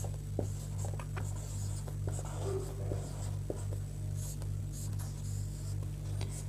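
Marker pen writing on a whiteboard: a run of short scratchy strokes and light taps as a word is written, over a steady low hum.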